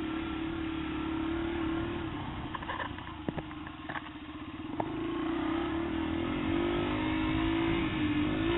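Yamaha TT-R125 trail bike's single-cylinder four-stroke engine running under the rider. It eases off about three seconds in, with a few sharp knocks and rattles over the rough trail. Then it picks up again, the engine note rising in steps.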